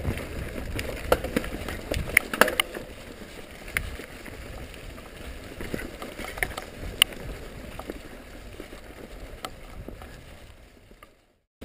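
A mountain bike rolling down a rocky, leaf-strewn trail: tyres crunching over dirt and stones, with scattered sharp rattles and clacks from the bike over a low rush. It fades and cuts off near the end.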